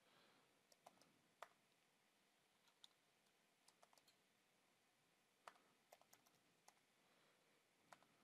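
Faint computer keyboard keystrokes: a dozen or so short, irregular clicks over near silence, as a search command is typed into the vi editor.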